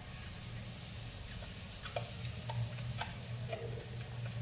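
Thread seal tape being wrapped and pulled around the threads of a faucet supply-hose fitting: soft rustling and handling with a few faint clicks and taps, over a steady low hum.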